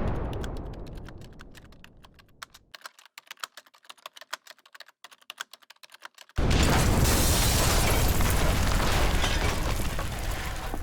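Jet aircraft noise: a loud deep rush that fades away over the first two to three seconds, a few seconds of quieter irregular clicking, then a second steady deep roar that starts abruptly about six and a half seconds in.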